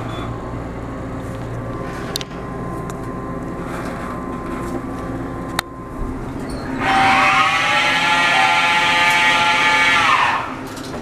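Hotel elevator running with a steady low hum and a couple of sharp clicks. A little past halfway, a loud, steady, high squeal starts and lasts about four seconds, dipping in pitch as it cuts off.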